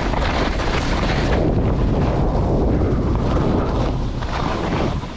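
Wind buffeting the microphone of a camera carried by a moving skier, a loud steady rumble, with skis hissing and scraping over packed snow.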